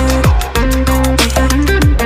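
Electronic background music: a fast, steady drum beat over a deep bass line and held synth notes.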